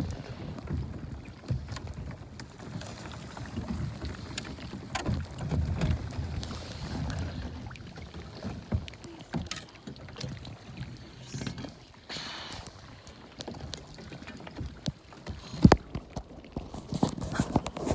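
Sea kayak paddled through brash ice: paddle strokes swishing and splashing in the water, with scattered sharp knocks and clicks, the loudest about three-quarters of the way through.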